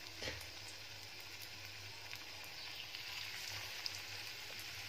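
Spice-coated paneer pieces frying softly in hot oil and ghee in a kadai, a faint steady sizzle with a short crackle just after the start.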